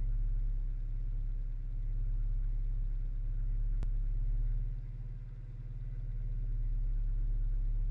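Acura Integra B18B1 four-cylinder engine idling with a steady low hum, a single faint click about four seconds in and a brief drop in level a little after. The owner hears an unexplained noise recurring every few seconds from the passenger side of the engine bay, present cold or warm.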